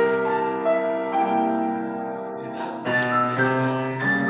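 Piano playing slow held notes and chords, with a fresh chord struck about three seconds in.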